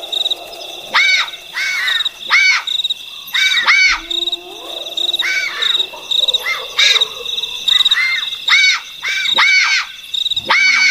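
Bat-eared foxes calling: a rapid series of short, high calls that rise and fall, coming in pairs and clusters. Crickets trill steadily beneath them.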